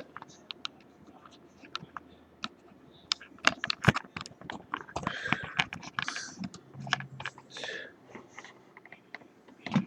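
Irregular small clicks and taps of the Brinks 527 padlock's brass pins and a metal tool as the pins are taken out of the disassembled lock's plug.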